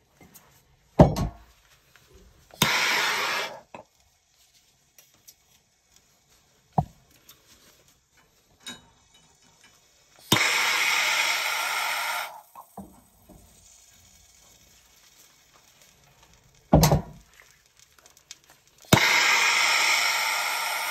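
Handheld gas torch hissing in three bursts of one to two seconds or more, its flame heating a soldered copper pipe joint at a brass union fitting. A few sharp knocks come in between, and the last burst starts with a click about nineteen seconds in.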